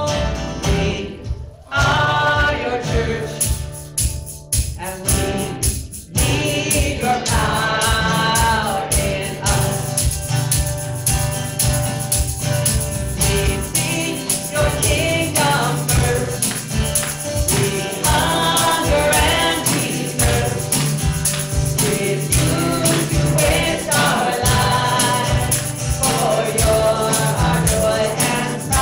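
Worship music: a group of voices singing a song over instruments with a steady beat.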